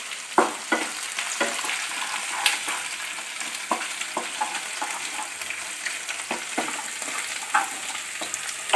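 Curry leaves, garlic, ginger and green chillies sizzling in hot sesame oil in a non-stick kadai, stirred with a spatula that scrapes and clicks against the pan now and then.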